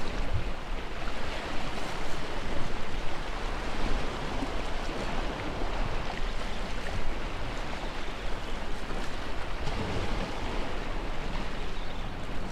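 Steady wind rushing over the microphone, mixed with the wash of surf against the jetty.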